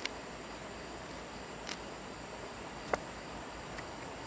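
Faint, steady background of crickets chirring, with four soft clicks scattered through it.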